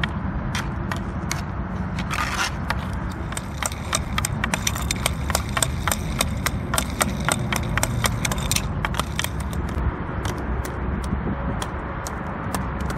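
Hockey stick blade stickhandling pucks on asphalt: a run of sharp clacks as the blade taps a puck from side to side, with scraping of the puck and blade over the pavement. The clacks are thickest and brightest through the middle stretch, where the puck is a Green Biscuit.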